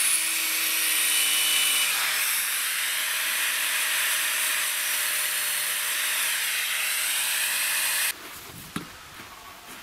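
Angle grinder with a stone-cutting disc cutting cement-bonded particle board: a steady, loud, high grinding hiss over the spinning motor's tone. It stops abruptly about eight seconds in.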